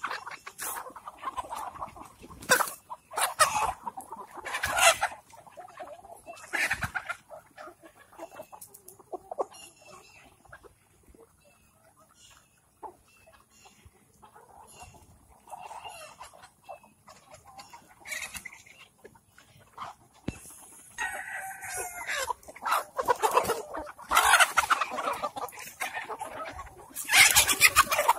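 A flock of Kadaknath chickens clucking and calling in irregular bursts, with a rooster crowing in the later part.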